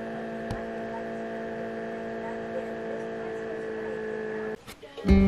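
Small tabletop egg incubator running with a steady hum of several tones and a couple of faint clicks. The hum cuts off near the end.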